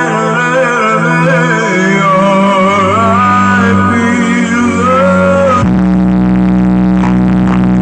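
Loud DJ-remix music from a large outdoor sound-system loudspeaker stack: a singer's wavering melody over a steady bass line. About two-thirds of the way through the voice cuts off suddenly and a held, deep bass drone takes over.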